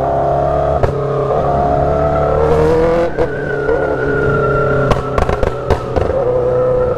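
Sport motorcycle engine running under way, its note climbing gently and then settling. The exhaust pops in sharp cracks, with a quick cluster of them a little after halfway.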